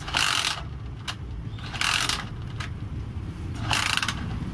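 Kick-starter of a Honda GL Max motorcycle pushed down by foot three times, each stroke a short ratcheting rasp about half a second long. The lever returns on an improvised external spring fitted in place of the broken internal kick-starter return spring.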